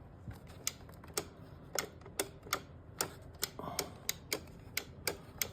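Sharp, irregular clicks and taps, about two or three a second, from the Samsung refrigerator's water dispenser lever and its parts being worked by hand.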